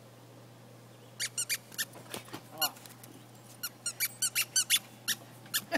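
Rubber squeaky dog toy being squeezed by hand over and over: short, high squeaks in quick runs, starting about a second in.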